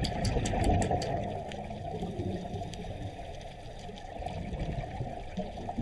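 Underwater water noise picked up by a dive camera: a steady, muffled rushing with a run of small clicks in the first second or so.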